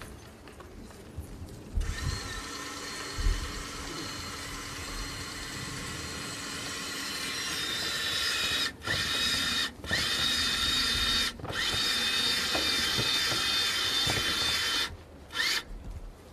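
Electric chain hoist on a casket-lowering gantry running with a steady high whine, stopped and restarted several times in short jogs, each restart rising in pitch as the motor spins up. Two low thumps come near the start, before the motor begins.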